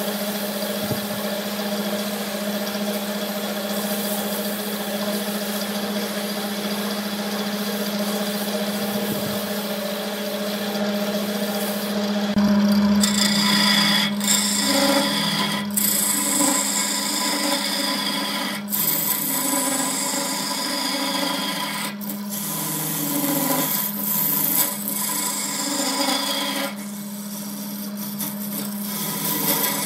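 Wood lathe motor humming steadily while sandpaper rubs against the spinning wooden vase. About 13 seconds in, a turning chisel starts cutting into the spinning wood with a rough scraping sound, in a run of passes broken by short pauses.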